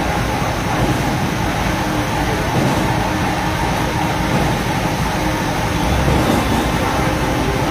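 Steady, loud rushing noise of fire-hose water spray over a low rumble.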